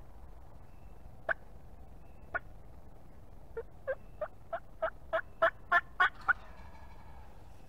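Turkey yelps: two single notes, then a run of about ten yelps at roughly three a second that grows steadily louder.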